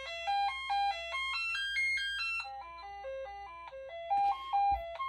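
Commodore 64's SID sound chip playing the diagnostic cartridge's sound-test tune: a quick run of bright beeping notes stepping up and down in pitch. A soft low thump near the end.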